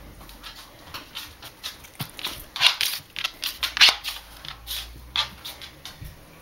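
A dog close by on a hardwood floor, making a run of short, irregular noises, loudest between about two and a half and four seconds in.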